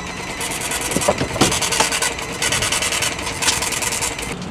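Rapid, dense rattle of suitcase wheels rolling over pavement, in two stretches with a short break between them and a few knocks early on.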